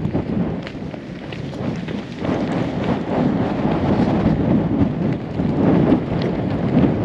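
Wind buffeting the microphone outdoors, a loud low rumble that rises and falls in gusts.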